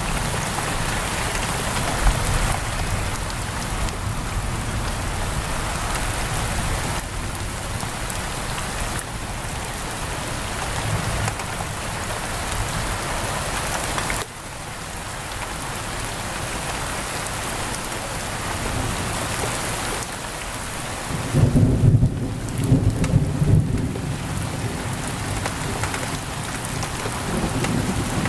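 Heavy rain pouring steadily on a window, with a low rumble of thunder rolling through about three quarters of the way in.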